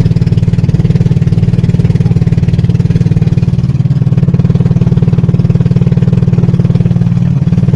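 Small boat engine running steadily at a constant speed, loud and close, with a fast even pulse.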